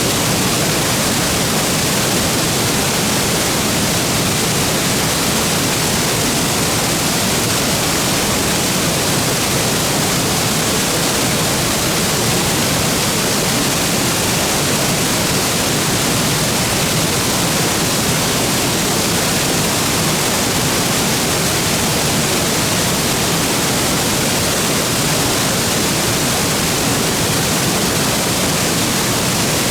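Waterfall plunging into its pool: a loud, steady roar of falling water that does not change.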